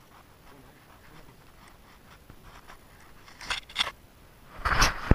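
Rustling and scraping handling noise close to the camera's microphone as the fisherman shifts in his jacket. A couple of short scrapes come past the middle, then a louder, fuller rustle just before the end.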